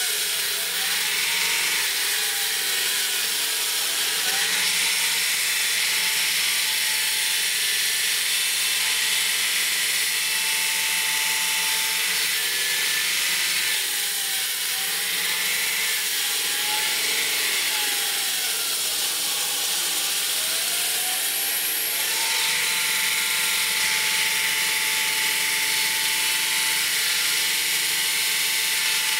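Hydraulic diamond circular saw on a demolition robot wet-cutting through concrete slabs. It makes a loud, steady hiss and grind with a whine that dips and recovers in pitch several times as the blade loads, then holds steady over the last several seconds.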